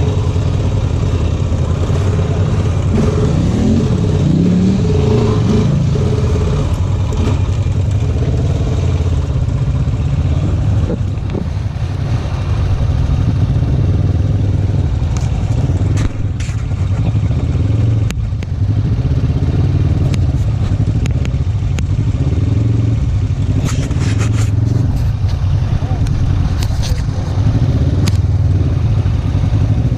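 Off-road vehicle engine running at low speed, its pitch rising and falling with the throttle for a few seconds early on. Scattered knocks and rattles from the vehicle come through, most of them in the second half.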